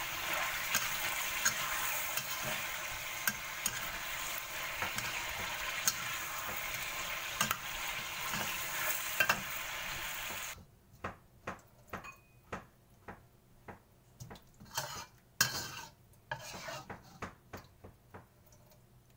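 Pork belly sizzling in a wok while a metal spatula stirs and scrapes it, with small clicks against the pan. About ten seconds in the sizzle stops suddenly, and a string of separate spatula-like clicks and knocks follows.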